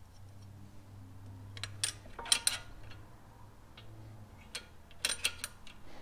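Sharp metal clicks and clinks of a brake pad and its shim being handled and fitted into a car's front brake caliper, in two short clusters, about two seconds in and again about five seconds in, over a steady low hum.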